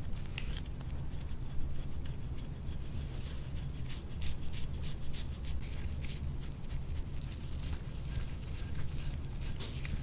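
Short, quick scraping strokes of a metal soft-tissue scraping tool drawn over the skin of a back, several a second in runs, over a steady low hum.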